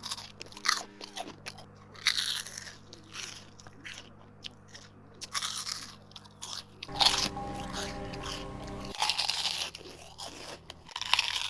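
Potato crisps being bitten and chewed close to the microphone: a run of sharp, crackly crunches about every second, in clusters, over quiet background music.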